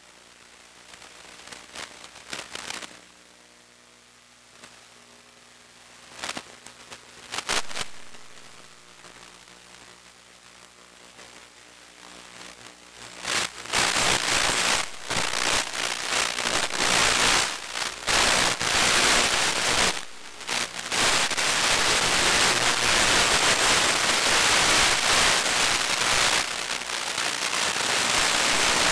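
Radio static from an analog 1.3 GHz FPV video receiver. At first there is a faint hum with a few short crackles; about halfway through it turns into loud hiss and crackling that carries on, a sign that the video signal is weakening and breaking up.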